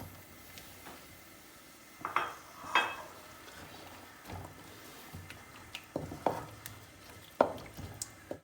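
A spoon stirring onions in hot oil in a cooking pot. It clinks and knocks against the metal several times, with two ringing clinks about two and three seconds in.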